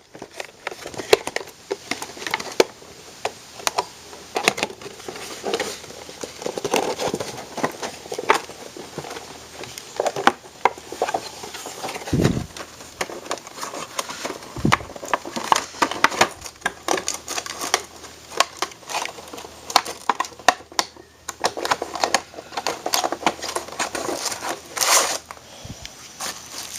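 Crinkling of packaging with many small clicks and taps from hands handling a die-cast model excavator.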